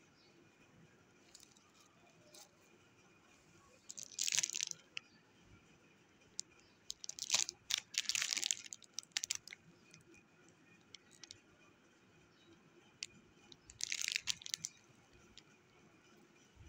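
Clear plastic jewellery bags and cellophane wrapping crinkling as they are handled, in three short bursts: about four seconds in, a longer one around seven to nine seconds in, and one near fourteen seconds in, with a few faint clicks between.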